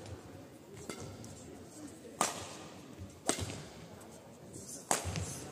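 Badminton rackets striking a shuttlecock in a fast singles rally: three sharp hits, a second to a second and a half apart, each ringing briefly in a large hall.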